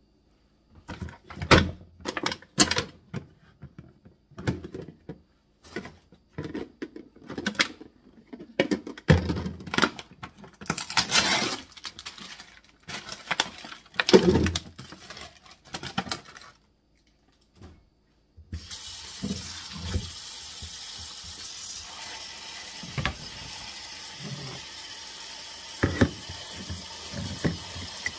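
Grapes handled in a plastic clamshell at a kitchen sink: scattered clicks, knocks and crinkles of the plastic. About two-thirds of the way in, a tap turns on and runs steadily into the sink, with a few clicks and knocks over it.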